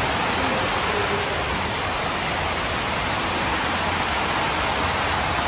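Steady, even rush of floodwater pouring into and running across a flooded subway station concourse.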